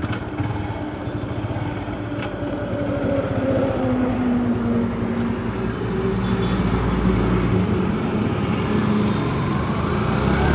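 Yamaha FZ-S V2.0's single-cylinder engine pulling the motorcycle away from a standstill and accelerating slowly, its note dipping and then rising as it gathers speed. Two short clicks sound in the first couple of seconds.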